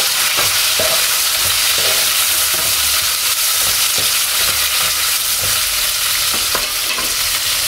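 Chopped tomatoes and lightly browned onions sizzling in hot oil in a frying pan, with a metal ladle stirring them and tapping the pan now and then.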